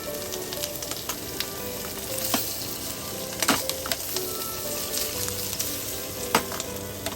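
Meat sizzling and frying on a cast iron griddle plate, a steady hiss with scattered sharp pops of fat.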